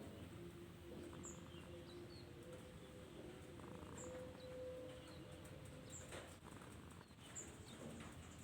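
Domestic cat snoring softly in its sleep.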